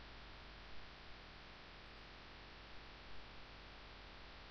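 Near silence: faint steady hiss with a low mains hum.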